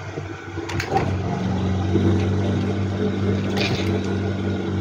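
Industrial sewing machine starting with a click about a second in, then running at a steady speed with a low hum as it stitches a seam.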